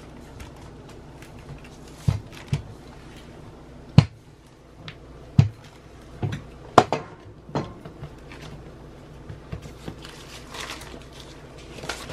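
Rolling pin rolling out yeast dough on parchment paper: soft rolling and paper rustling, broken by several sharp knocks, with a steady low hum underneath.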